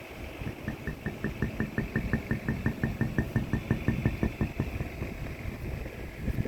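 Rapid, even hammer taps, about five or six a second with a short metallic ring on each, stopping a little past halfway.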